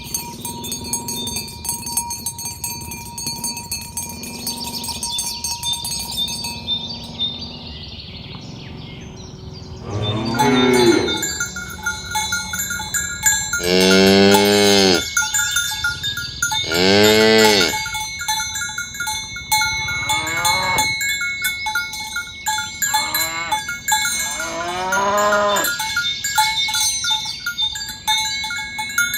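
Cattle mooing: after about ten seconds, six or seven long moos follow a few seconds apart, each rising and falling in pitch, over a steady high ringing in the background.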